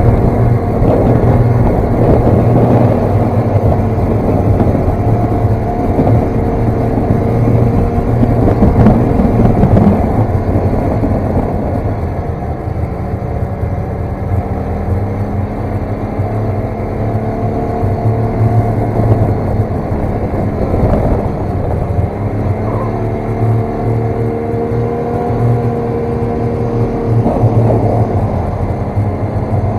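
Snowmobile engine running while being ridden, its pitch rising and falling with the throttle, easing off briefly about two-thirds of the way through and then climbing again.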